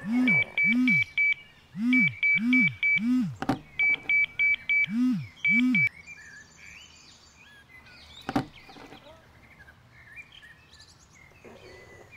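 Electronic alarm beeping in rapid bursts of four to six high beeps, with a low swooping tone repeating beneath it. It stops about six seconds in, leaving faint birds chirping. A sharp click comes a little past halfway.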